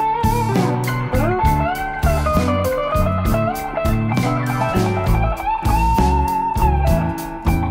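Blues background music: a guitar plays a lead line with bent, sliding notes over bass and evenly repeating drum hits.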